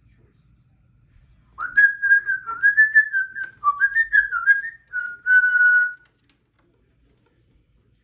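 Congo African grey parrot whistling a clear tune of several linked notes that step and waver in pitch, for about four seconds, stopping about six seconds in.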